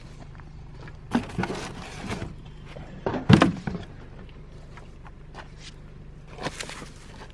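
Junk clattering and knocking as tools and debris are pulled about in a trash pile, in three bursts with the loudest near the middle, over a steady low hum.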